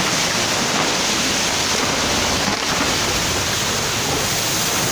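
Steady rushing noise of a landslide debris flow, a torrent of muddy water and earth pouring down a hillside.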